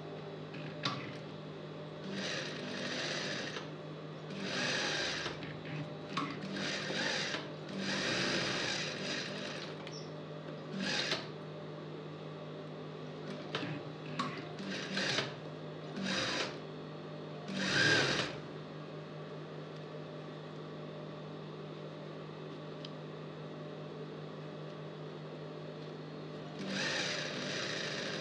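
Industrial lockstitch sewing machine stitching in short runs of one to two seconds, stopping between runs while the fabric is repositioned, over a steady low hum. After a long stretch of only the hum, it sews one more run near the end.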